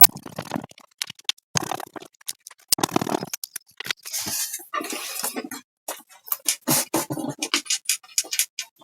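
Irregular clicks, knocks and scrapes of hands handling the plastic case and screws of a TV speaker base during reassembly.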